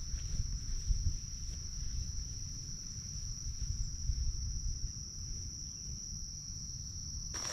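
Insects trilling steadily at one high pitch, over a low rumble. Footsteps start just before the end.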